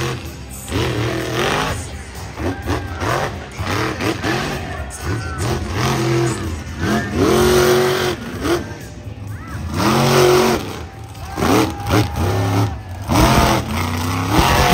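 Monster truck's engine revving hard over and over, its pitch sweeping up and dropping back about a dozen times as the truck drives its run on dirt.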